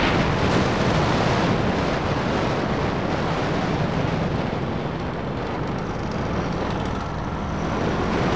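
KTM Duke motorcycle engine running steadily while riding along, with wind noise rushing over the microphone.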